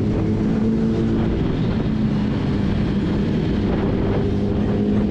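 Sport motorcycle engine running at a steady speed, an even drone that holds its pitch.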